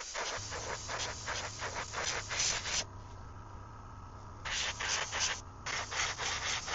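Airbrush spraying silver paint onto a 3D-printed lure in short, quick hissing pulses, with a pause of about a second and a half in the middle. A low steady hum comes in about half a second in.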